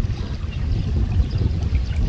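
Wind buffeting a phone's microphone in an uneven low rumble, over the light wash of small waves on choppy open water.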